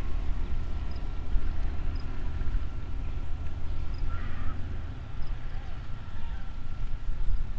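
Steady low rumble of outdoor background with a faint, thin steady tone, and a brief faint animal call about four seconds in.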